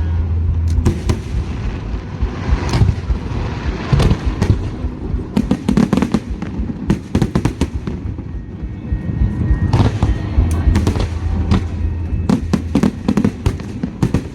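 Aerial fireworks bursting in quick succession, a dense run of bangs and crackles.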